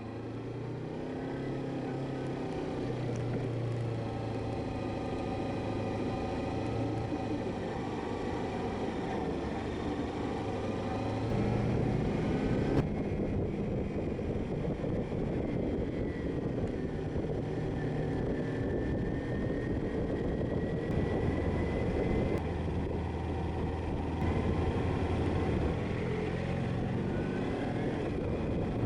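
Motorcycle engine running while riding, its note holding fairly steady with slow gentle rises and falls and a shift in pitch about halfway through, over a steady rushing noise.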